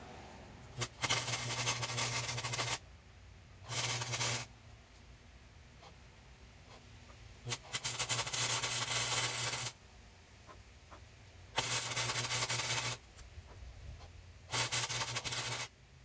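Wire-feed (MIG) welder tack-welding engine mounts onto a bicycle frame: five bursts of steady arc crackle, each one to two seconds long, with a low hum under each and short pauses between.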